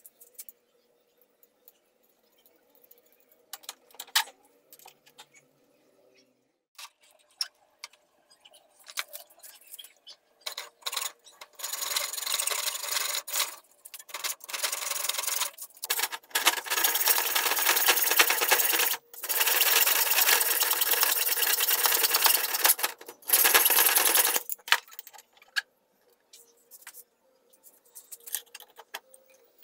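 A hacksaw blade cutting through a thick steel part clamped in a bench vise. A few light metal clicks and knocks come first. Then, from about a third of the way in, there are several bouts of rasping metal-sawing a few seconds each, with brief pauses between them. The sawing stops about three-quarters through, and a few scattered clinks follow.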